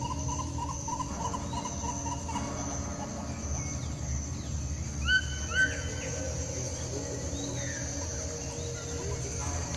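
Outdoor ambience of a steady high-pitched insect-like whine with bird chirps: a warbling run of chirps at the start, and two short, loud rising calls about five seconds in.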